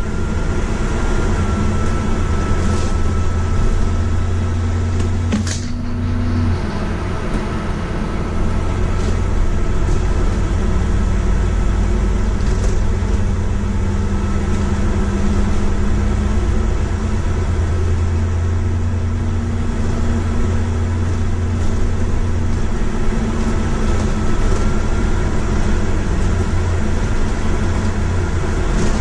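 Bus engine and drivetrain running steadily on the move, heard inside the bus from the upper deck, with a constant high whine over the low engine hum. A single sharp click comes about five and a half seconds in, and the engine note changes shortly after, as at a gear change.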